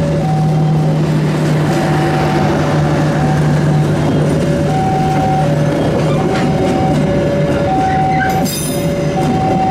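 Passenger coaches rolling past with a steady rumble of wheels on the rails, over an electronic level-crossing alarm sounding a high and a low note by turns, about one pair a second. A low steady hum fades out about six seconds in, and a short high wheel screech comes near the end.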